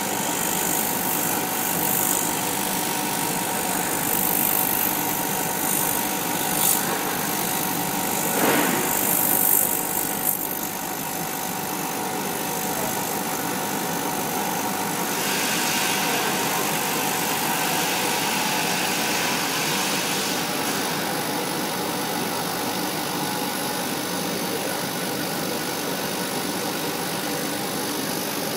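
Laser cutter running, a steady machine hum with a constant whine, with brief louder hissing bursts during the first ten seconds while the head is cutting paper.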